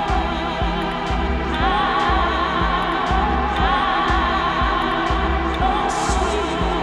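Electronic dance track with a steady kick-drum beat under a sampled gospel choir singing long, wavering held notes.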